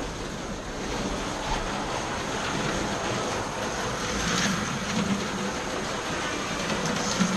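Several slot cars running round a plastic track: small electric motors whining and wheels rolling in the slots, with one car passing close about four and a half seconds in.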